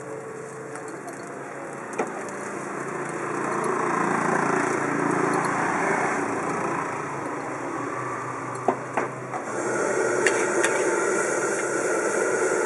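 Fried rice sizzling in a large steel wok over a fire while a metal spatula scrapes and stirs it. The spatula gives a few sharp clanks on the wok, once about two seconds in and several times around nine to ten seconds. The sizzle turns hissier about nine and a half seconds in. A steady engine-like drone runs underneath.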